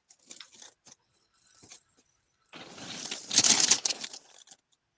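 Small plastic bags of diamond-painting drills being handled: light clicks, then a rustling, rattling burst of the bags and drills about two and a half seconds in.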